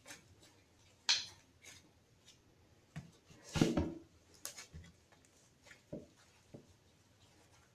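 Slime being handled by hand, giving scattered sticky clicks and squelches, the loudest a fuller squelch about three and a half seconds in.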